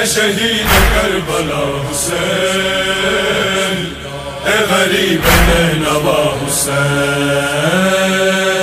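Male chorus chanting a noha, a Shia lament, in long held lines, with a deep booming hit about a second in and another around five seconds in.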